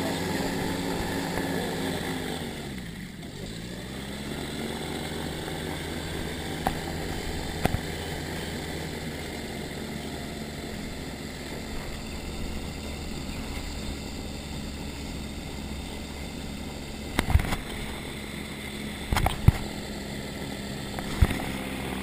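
Motorized hang glider trike's engine and pusher propeller running; the engine pitch dips and comes back up about three seconds in, then holds steady. A few sharp knocks sound near the end.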